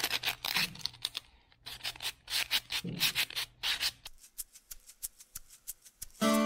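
Coarse 60-grit sandpaper rubbed by hand along a rough wooden hammer handle: quick scratchy back-and-forth strokes, several a second, growing fainter about two-thirds of the way through. Guitar music comes in right at the end.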